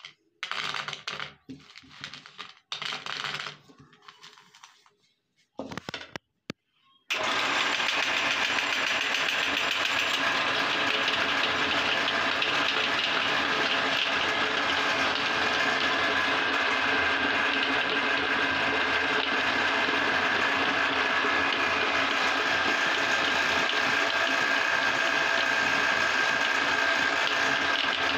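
Light clicks and rustles of gummy candies being picked off a plate, then, about seven seconds in, a steady whirring machine noise starts suddenly and runs on evenly.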